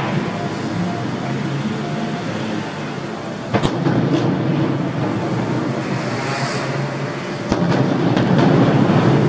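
Fireworks display with shells bursting into a continuous rumble and crackle. Two sharp bangs come about three and a half and seven and a half seconds in, each followed by a louder stretch of rumbling.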